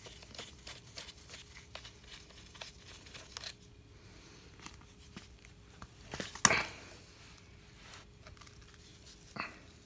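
Gloved hands handling parts of a 1991 Nissan 240SX power steering pump taken apart on a workbench: light rustling and small clicks. About six and a half seconds in there is a sharp knock as a pump part is set down on the bench, and a smaller knock near the end.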